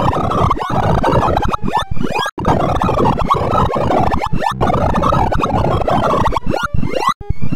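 Computer-generated sorting sonification of a merge sort: a dense, scratchy jumble of rapid electronic beeps whose pitches follow the values of the array elements being compared and written. Near the end come quick rising sweeps as sorted runs are merged.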